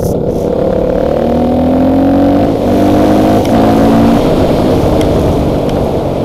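Engine of a small motor vehicle carrying the camera, accelerating with its pitch rising over the first few seconds, over a steady low road rumble.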